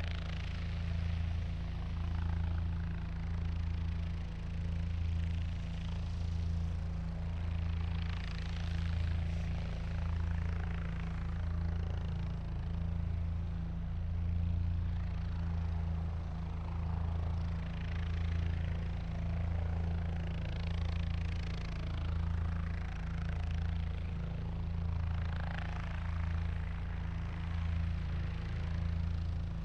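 Helicopter running with a steady low engine and rotor drone, and a higher rushing noise that swells and fades every few seconds.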